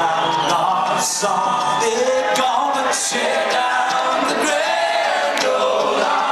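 Live bluegrass string band playing, with singing over the instruments.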